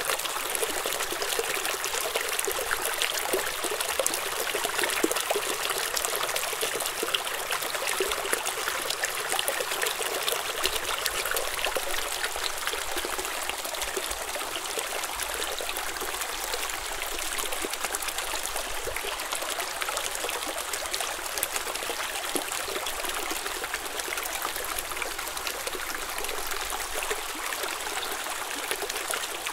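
Small stream trickling and babbling over stones, a steady, even splashing with many small droplet clicks.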